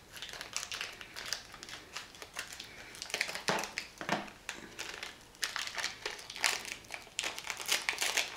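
Crinkly plastic snack wrapper being handled and cut open, in a run of irregular crackles with a few louder crinkles about halfway through.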